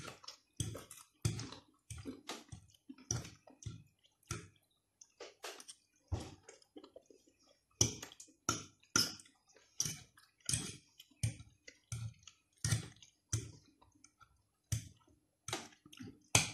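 A person chewing food close to the microphone: short wet smacks and mouth clicks at about one to two a second, with a brief lull around five seconds in.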